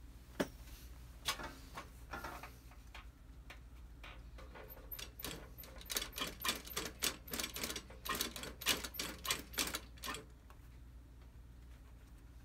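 Industrial leather sewing machine stitching a shoe's toe cap back on: a low steady motor hum under needle strokes. The strokes come one at a time at first, then in a quick run of about three a second from about five seconds in, stopping about ten seconds in.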